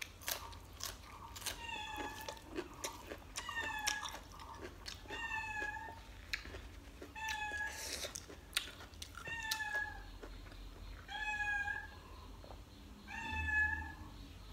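House cat meowing repeatedly, seven short calls about two seconds apart, begging at the smell of cooked chicken. Wet clicks of chewing and fingers in rice come between the calls.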